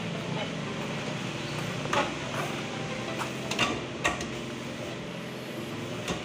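Scattered metal clinks and taps from hand tools and bumper parts as a truck's front bumper is worked on, over a steady low hum.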